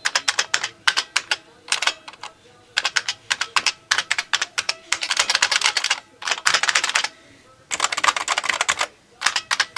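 IBM Personal Computer keyboards with buckling-spring Model F keys being mashed with the fingers. Loud clicky keystrokes come in about nine quick runs, with short pauses between them.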